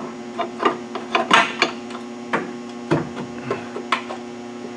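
Steady electrical mains hum, with a scattering of short, light clicks and knocks from hands handling metal suspension parts under the truck.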